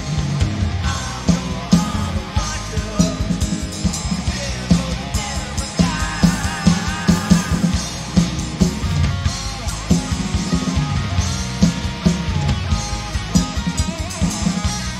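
Rock band playing: guitar over a steady drum-kit beat, with a wavering high melody line about six to seven seconds in.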